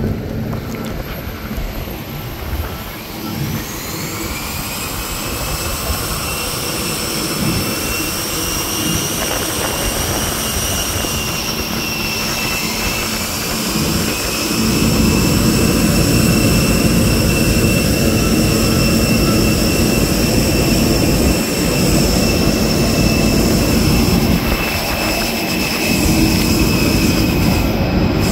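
Jet aircraft turbine whine: high steady tones that glide upward a few seconds in and then hold, over a low rumble. Wind buffets the microphone, heavier from about halfway through.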